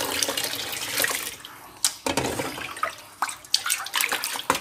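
Hot turmeric and betel-leaf decoction poured from a small metal saucepan into a basin of water, splashing in two bursts. The pan is then dipped into the basin and scooped through the water, with a few sharp knocks near the end.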